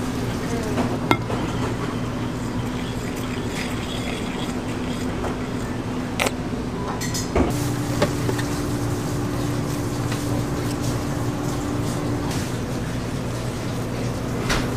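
Commercial kitchen background: a steady machine hum, with a second, higher hum joining for a few seconds midway, and a few light clinks and knocks of crockery on a stainless-steel counter.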